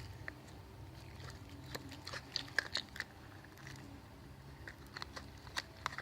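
Freshly set homemade milk slime (glue and body lotion) being kneaded and squeezed by hand, making scattered small wet clicks and pops.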